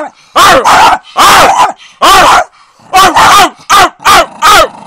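Dog in a wire crate barking over and over, about nine loud short barks, some coming in quick pairs.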